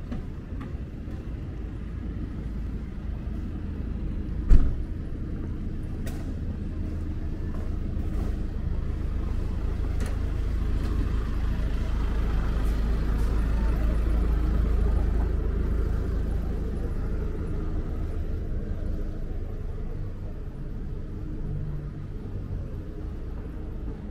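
City street traffic: a motor vehicle's low engine rumble and road noise build to a peak around the middle and fade again. A single sharp knock comes about four and a half seconds in.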